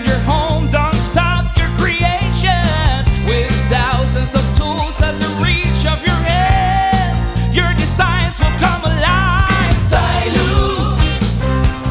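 Background music with a sung vocal over a steady, heavy bass line.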